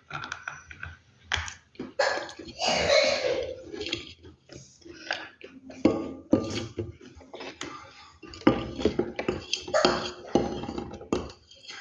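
Close-miked crunching of dry baked clay, an irregular run of sharp cracks and crumbling crackles.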